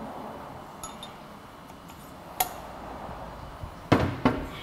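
Metal clinking and knocking as valves and tools are handled on a cast-iron tractor cylinder head: a faint click, a sharp clink about halfway through, then two heavier knocks close together near the end.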